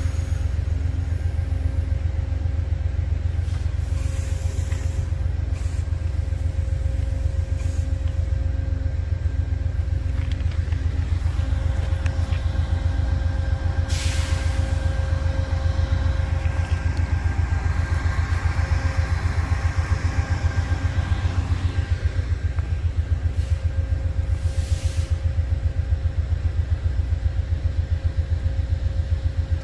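An engine idling: a steady low rumble with a fast, even pulse and a faint hum over it. About halfway through there is a short sharp hiss, then a rushing sound swells and fades.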